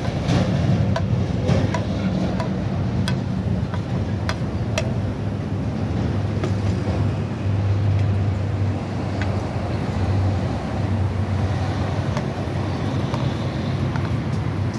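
A steady low hum with scattered light clicks and clinks over it.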